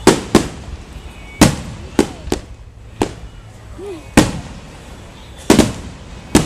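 Fireworks exploding: about ten sharp bangs at uneven intervals, some in quick pairs, with a short echo trailing each.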